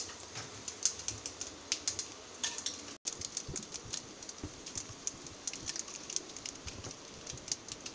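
Mustard seeds and dried red chilies frying in hot coconut oil in a kadai, with small irregular crackles and pops over a faint sizzle.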